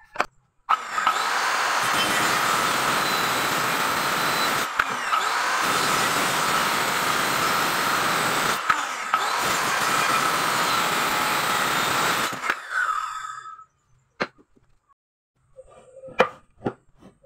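Handheld electric circular saw running and cutting through a block of wood, a steady high whine over the cutting noise, cutting out briefly twice. It winds down a little after halfway, and a few sharp knocks follow near the end.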